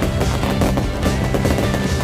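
Music with held notes, mixed with dense rapid crackling and popping from a fireworks display.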